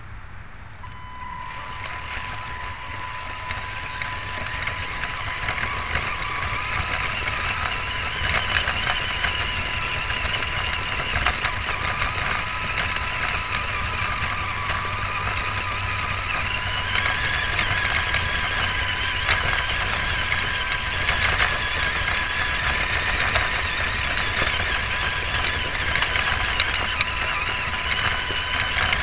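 Electric motor and gearbox of a Tamiya Wild Willy II RC car whining as it drives, heard through a camera mounted on the car. The whine climbs over the first several seconds and shifts in pitch with speed, over a steady high tone, with frequent small knocks from the car bumping over the ground.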